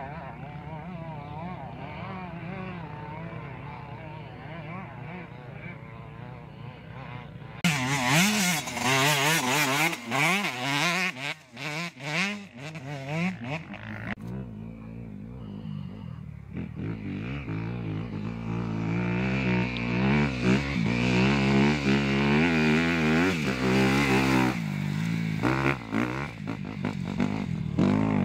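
Dirt bike engines racing past: first a bike's engine rising and falling at moderate level, then about seven seconds in a much louder bike close by, revving up and down rapidly for several seconds. After a short lull another bike's engine builds and runs loud toward the end.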